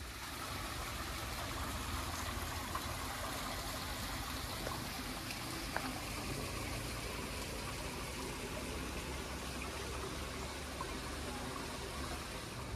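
Small garden stream babbling steadily over rocks.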